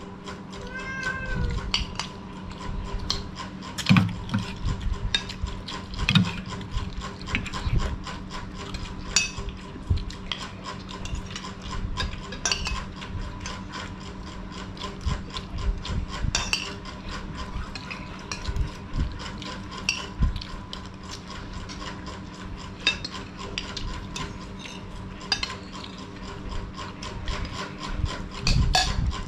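Metal spoons clicking and scraping against plates, a bowl and a metal tray, with chewing, as a meal is eaten. A steady electrical hum runs underneath.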